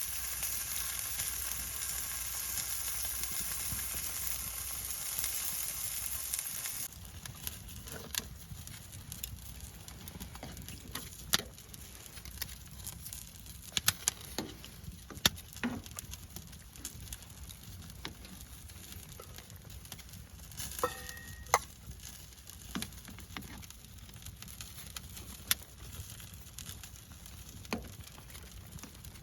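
Food sizzling loudly in a hot pan; after about seven seconds the sizzle cuts off abruptly, leaving a quieter hiss with scattered sharp pops and crackles.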